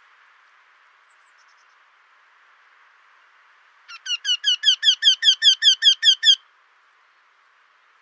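Eurasian wryneck song: a quick run of about fourteen short notes, each rising in pitch, some five or six a second, growing louder over the first few. It starts about four seconds in and stops after about two and a half seconds.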